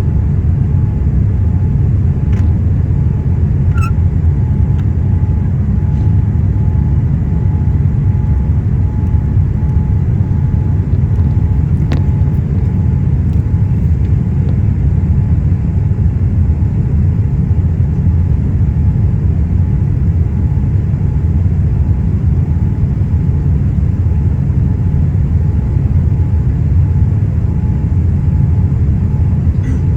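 Boeing 777 jet engine noise: a loud, steady low rumble with a faint, evenly pulsing hum above it.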